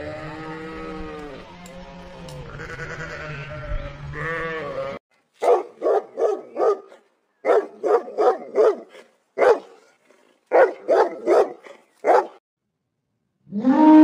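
Sheep bleating, several overlapping wavering calls, cutting off about five seconds in. Then a dog barking, about fifteen short barks in quick runs of three to five. Just before the end a long elephant call begins.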